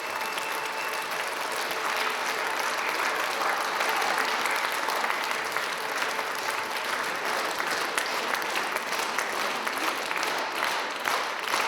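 Audience applauding: dense, steady clapping that thins into more distinct separate claps near the end.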